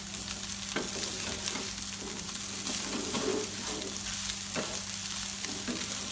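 Minced chicken sizzling in a nonstick frying pan over a high flame, while a flat metal spatula stirs through it and scrapes the pan several times to mix in the spice powders.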